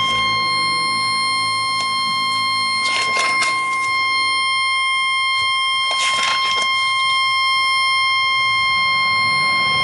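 Regal Safe RS50 alarm panel sounding its continuous programming tone, one unbroken steady high-pitched beep. The tone signals that the panel is in exit mode, the block for programming system and signalling. Two brief rustling noises come about three and six seconds in.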